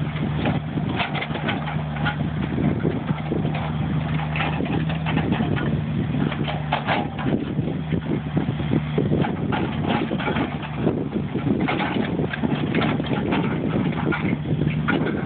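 Mini excavator's diesel engine running steadily, with irregular knocks and scraping as the machine pushes soil across a concrete mat.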